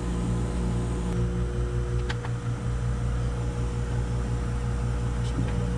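Steady low machine hum, with a couple of faint light clicks from parts being handled about one and two seconds in.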